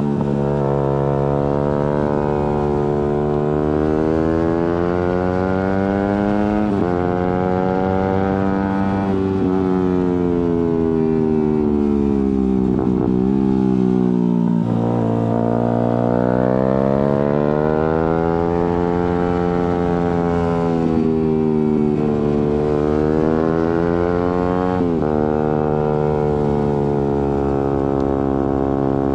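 Suzuki GSX-R150's single-cylinder engine and exhaust under way: revs falling off the throttle, climbing again under acceleration through the middle, and jumping up suddenly at each of three downshifts.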